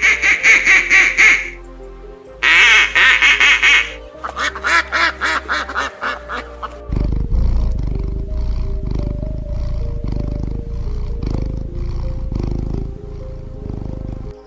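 Three quick runs of rapidly repeated animal calls in the first six seconds, over background music; after that the music carries on with a steady low rumble and beat.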